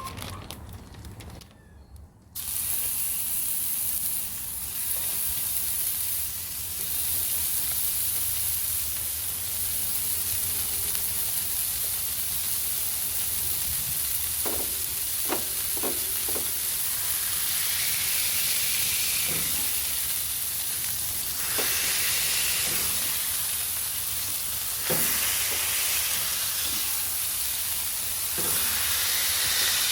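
Ground chuck smash-burger patties sizzling in a hot cast-iron pan. The steady sizzle starts about two seconds in, with a few short clicks partway through.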